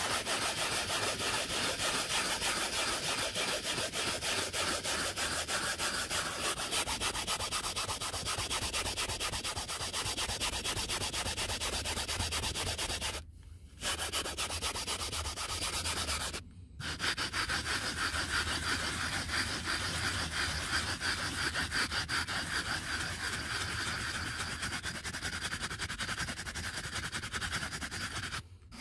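Turtle Wax Power Out's clip-off brush scrubbing cleaner foam into a cloth car seat in rapid back-and-forth strokes, with two brief pauses near the middle.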